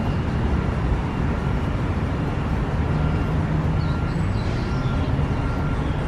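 Steady low rumble of city traffic noise. A few faint high chirps come through about four to five seconds in.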